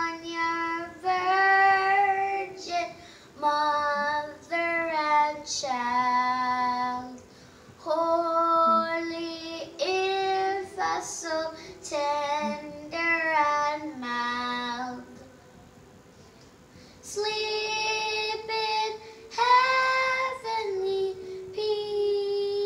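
A young girl singing solo, one voice in short phrases of held notes, with a break of about a second and a half past the middle before she sings on.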